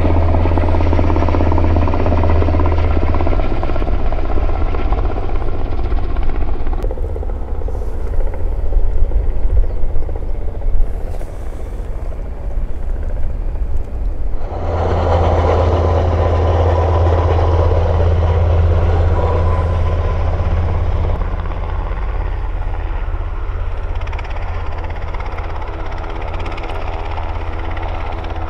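Sikorsky S-92A helicopters running loud, with a steady low rotor hum under turbine noise. The sound shifts abruptly about halfway through, where a helicopter in flight gives way to one on the ground with rotors turning. There are a few brief loud peaks about a third of the way in.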